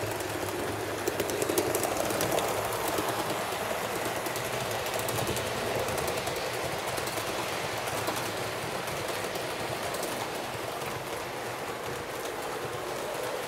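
HO-scale model train, a Fleischmann BR 39 steam locomotive with passenger coaches, running along the track with a steady rattle. Sharp clicks are heard in the first few seconds, as the wheels pass over the rail joints.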